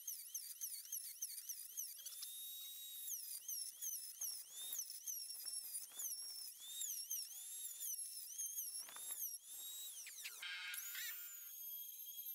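Table-mounted wood router cutting an ash strip fed along its fence: a high-pitched motor whine whose pitch dips and recovers over and over as the bit takes the load. About two seconds before the end the pitch falls sharply, then holds steady.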